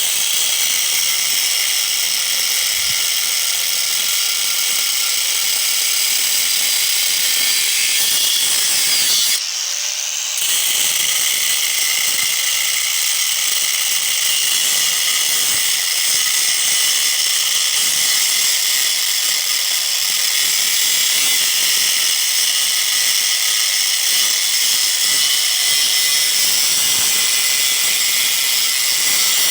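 Angle grinder with a cut-off wheel cutting through the metal of a large electric motor, a steady high-pitched whine of the wheel in the metal. About ten seconds in, the whine drops off briefly and then spins back up.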